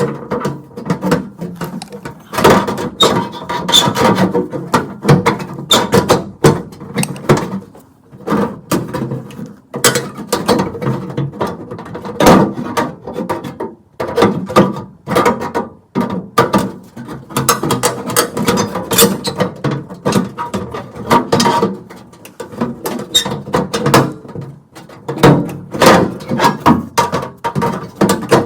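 Metal parts and tools being handled on a gas furnace: a run of irregular clicks, clanks and rattles.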